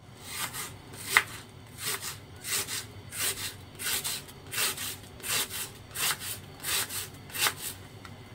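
Kitchen knife slicing an onion on a plastic cutting board: about a dozen cuts at a steady pace, roughly one every two-thirds of a second. Each cut is a short rasp with a light tap of the blade on the board, and the sharpest tap comes about a second in.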